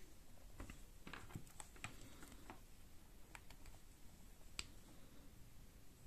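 Faint, scattered small clicks and taps from a USB charging cable and a smartphone being handled, with the sharpest click about four and a half seconds in.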